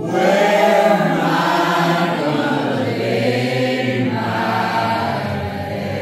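A group of mixed voices singing together a cappella, coming in all at once right at the start and holding long, overlapping notes.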